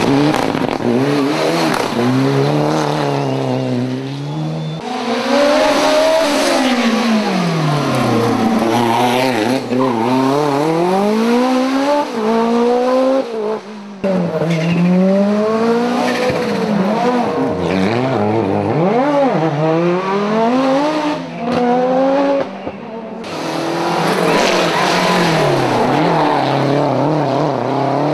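Rally car engines revving hard, pitch climbing and dropping through gear changes and lifts as the cars drive a stage. The sound breaks off abruptly several times as one pass gives way to the next.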